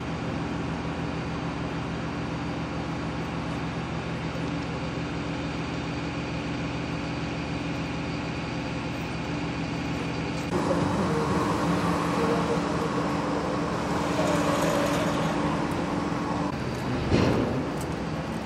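Street traffic noise with a steady low engine hum. About ten seconds in it grows louder and busier, and a short louder sound comes near the end.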